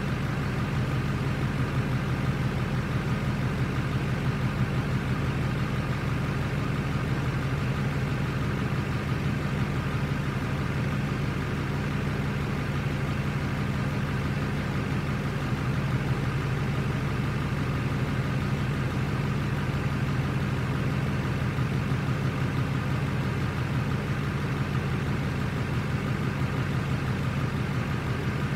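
Pickup truck engine idling steadily, an even low hum with a fast, regular pulse.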